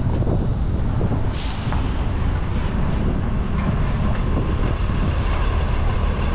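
Steady low rumble of a school bus engine and street traffic close by, with a short hiss about a second and a half in and a brief thin high squeal around three seconds in.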